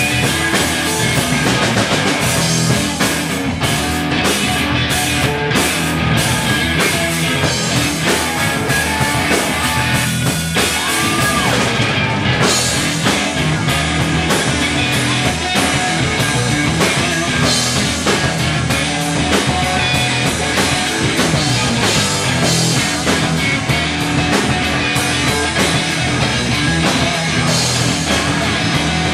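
Live rock band playing loudly on electric guitar, electric bass and drum kit.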